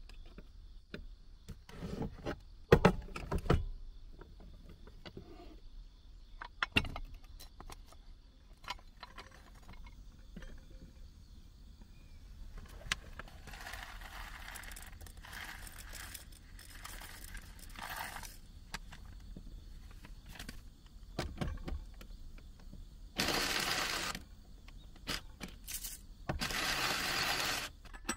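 Cookware and utensils being handled on a small counter: scattered clinks, taps and light scrapes of metal and enamelware. Near the end come two louder rushing bursts of about a second each.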